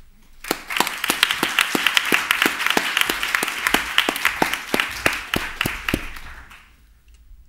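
Audience applauding, starting about half a second in and dying away near the end, with a few sharp claps a second standing out above the rest.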